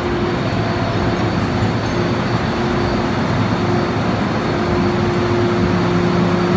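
Steady loud rush of noise with a low rumble and one steady hum running through it, from a Hong Kong MTR M-Train standing at the platform with its doors open.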